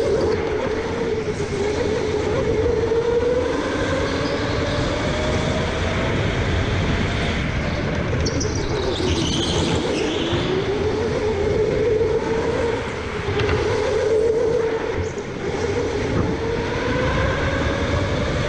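Electric go-kart motor whining, its pitch sliding down and back up with speed through the corners, over rumble from the kart. A brief high squeal comes about halfway through.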